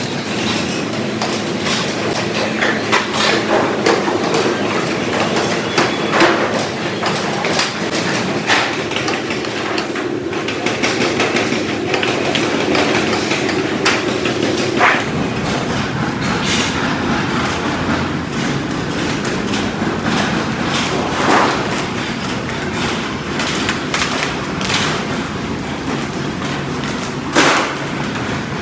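Factory workshop noise: a steady machinery din with frequent sharp metal knocks and clanks, changing character abruptly about halfway through.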